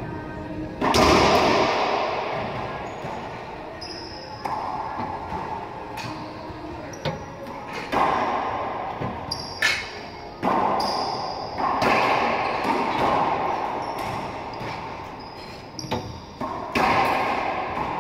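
Racquetball rally: the rubber ball cracks off racquets and the court walls about ten times, each hit echoing loudly around the enclosed court. Short high squeaks, typical of sneakers on the hardwood floor, come between the hits.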